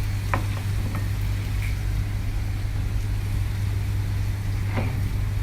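Steady low machine hum, with a few faint light clicks: one about a third of a second in, one after about a second, and one near the end.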